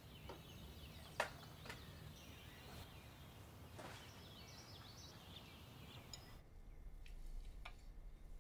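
Faint room ambience with distant birds chirping and a few light knocks and clicks. About six seconds in it drops to a quieter low hum with a couple of soft clicks.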